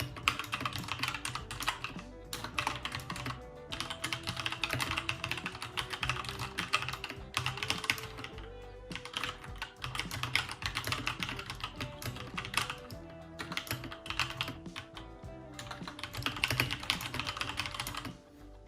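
Continuous fast typing on a Keychron K2 mechanical keyboard with Gateron switches: a dense run of key clacks broken by a few brief pauses, over soft background music.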